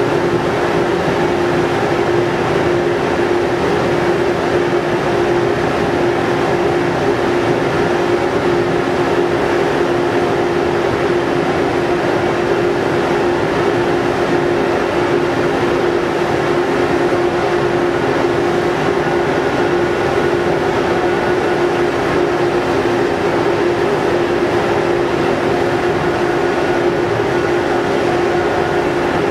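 Steady drone of the ferry MV Salish Eagle's engines and shipboard machinery as the vessel pulls away from its berth: an even hum with one steady pitched tone over a constant rumble.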